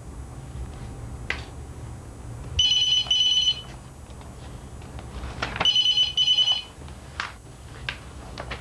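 Telephone ringing with an electronic trill, two double rings about three seconds apart.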